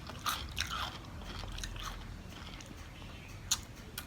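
A person chewing food, with scattered soft crunching clicks and one sharper click about three and a half seconds in.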